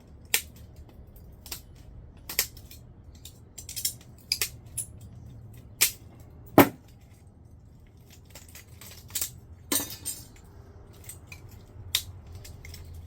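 Hand snips cutting the aluminum cooling fins off a microwave magnetron: a string of sharp snaps at irregular intervals, the loudest about six and a half seconds in.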